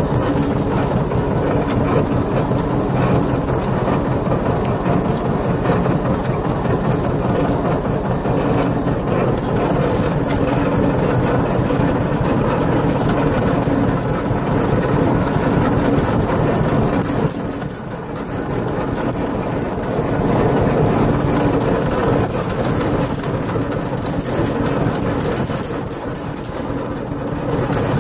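Tractor engine running steadily while towing a John Deere manure spreader in operation, with the rattle of the spreader's apron chain and beaters working the manure load.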